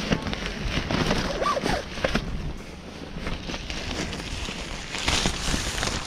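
Motorcycle cover fabric rustling and crackling as it is pulled down over a dirt bike's front wheel.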